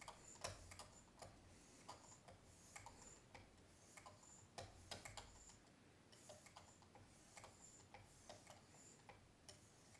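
Soft, faint swipes of fine 3M lapping film on a Work Sharp Precision Adjust abrasive holder drawn along a Gerber knife's steel edge, about once a second, with scattered light clicks.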